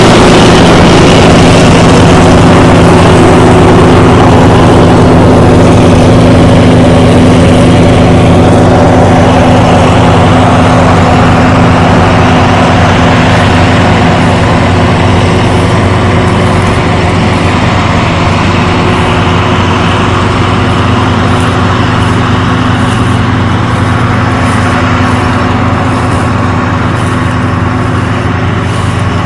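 Massey Ferguson 34 tractor engine running steadily at a constant speed, heard loud and close.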